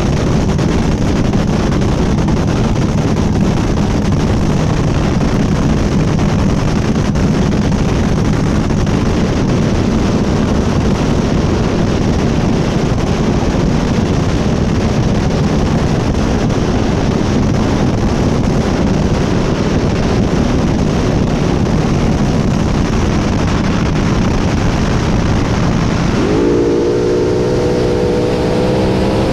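Supercharged V8 of a front-engine dragster running loud and rough through open headers. About 26 seconds in the engine speed picks up, the pitch jumping and then climbing steadily.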